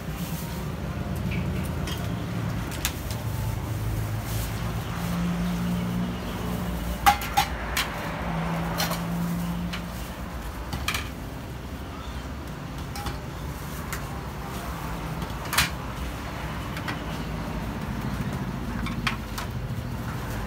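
Street-stall ambience: a steady low rumble with occasional sharp clinks of ceramic bowls and metal utensils being set down on a steel counter.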